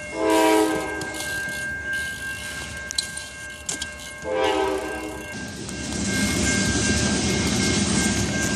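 Train horn sounding two blasts about four seconds apart, each about a second long, then the rumble of the passing train building up about five seconds in.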